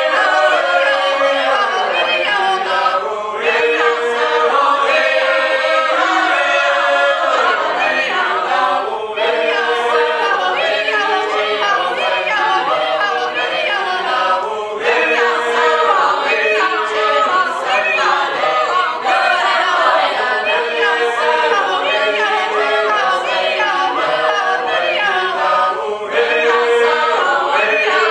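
Mixed-voice a cappella choir singing a Georgian folk song in dense multi-part harmony, with held notes and short pauses between phrases.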